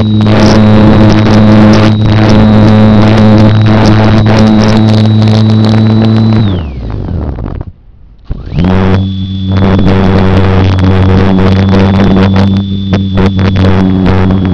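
Electric motor and propeller of a Slow Stick model plane, heard from a camera riding on the plane. It runs at a steady high throttle with a thin high whine, winds down in pitch about six seconds in as the throttle is cut, goes quiet for a second or two while the plane glides, then comes back up to speed.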